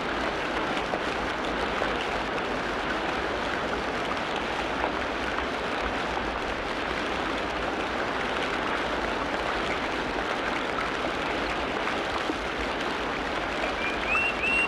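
Steady rushing sound of running water. Near the end comes a quick run of about five high chirps.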